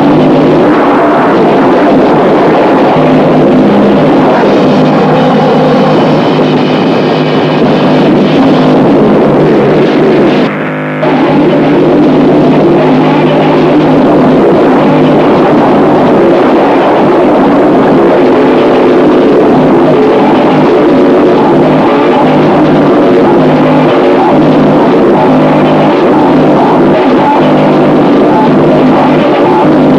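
Harsh noise music: a loud, dense wall of distorted noise with droning pitched layers underneath, with one brief dropout about a third of the way through.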